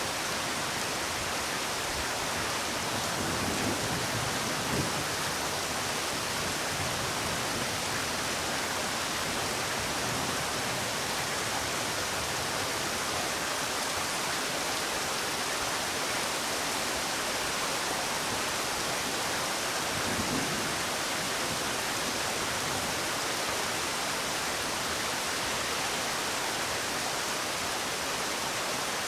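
Steady rain falling, an even continuous hiss with a slight swell twice.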